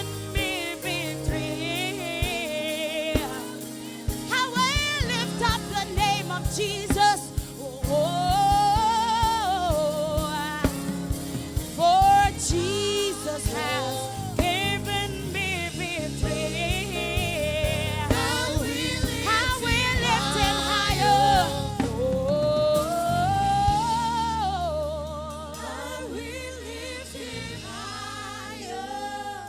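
Gospel singing with music and drums: a voice sings a worship song with vibrato over a band, with the backing thinning out after about 24 seconds.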